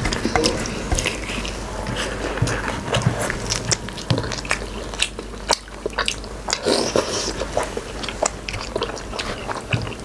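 People chewing and smacking their lips while eating beef-trotter nehari with luchi: a run of many short, wet mouth clicks.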